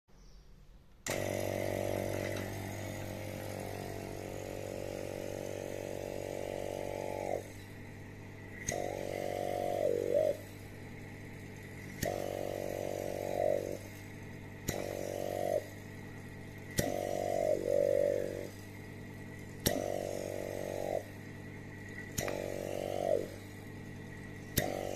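Electric vacuum pump switched on about a second in and running with a steady hum, used for a valve leak test on a cylinder head. About eight times its sound swells into a louder pitched drone, each time starting with a sharp click, then bends down and drops back. This fits the suction cup on its hose being lifted and pressed onto one port after another, and the pump pulling down the vacuum on each.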